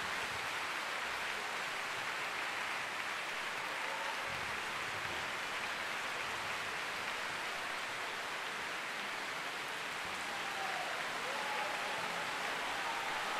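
Large audience applauding steadily, a dense even clapping with no music.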